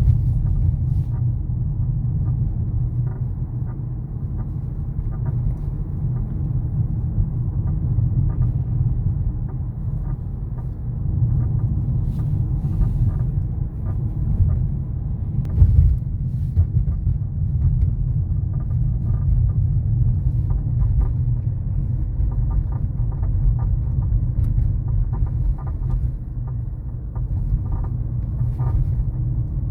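Skoda Octavia A5 facelift on the move, a steady low rumble with short, irregular squeaks and creaks from the front end of the car.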